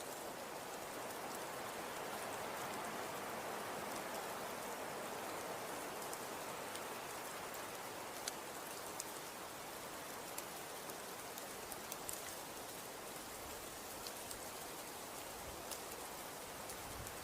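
Wind with blowing snow: a steady, even hiss with faint scattered small ticks.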